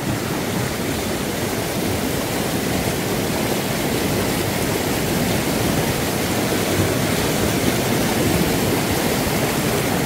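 Mountain stream water rushing steadily as it pours in a small whitewater cascade over rocks into a pool, close by.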